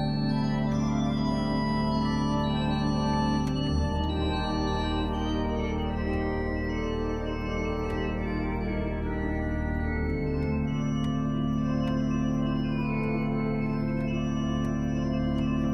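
Cathedral pipe organ playing sustained chords over long-held low bass notes. The bass changes about four seconds in and again about ten seconds in.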